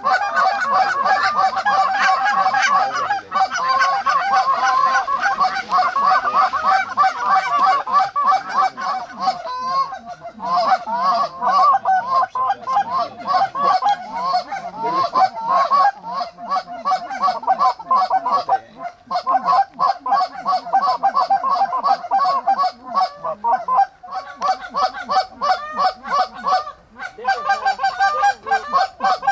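A flock of Canada geese honking, many calls overlapping almost without a break, with brief lulls now and then.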